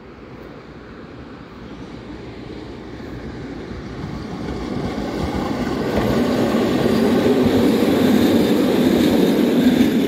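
Tram running along the track toward the listener, its wheels rumbling on the rails and growing steadily louder until it passes close by near the end.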